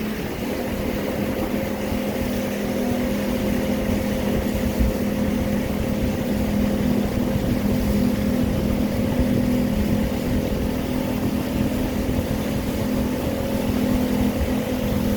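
Motorboat running at steady speed: an even engine drone over rushing wind and water noise.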